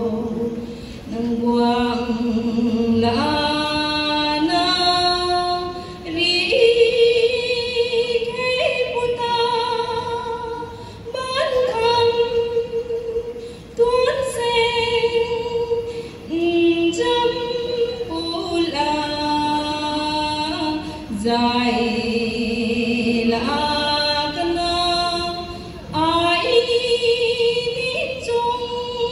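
Female voices singing a slow song in long held notes. Each phrase lasts a few seconds and steps up in pitch, with short breaks between phrases and no clear drumbeat.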